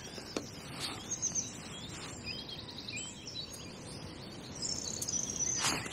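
Songbirds singing: quick high chirps and short warbling trills over a faint steady outdoor hiss, with a short louder noise just before the end.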